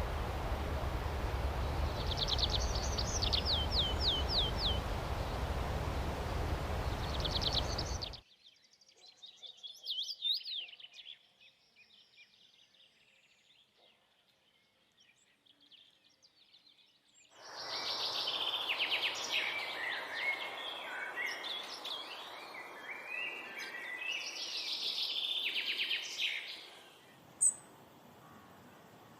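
Songbirds singing in a run of separate recordings. First come short, repeated, falling trills over a steady low rumble, then a quiet stretch with a single call. After that comes a dense spell of chirping and twittering, and near the end a few sharp, high chirps.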